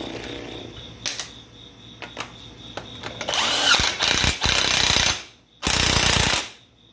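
Impact wrench running down and tightening a castle nut on a front wheel hub, in two loud bursts starting about three seconds in, the second one shorter.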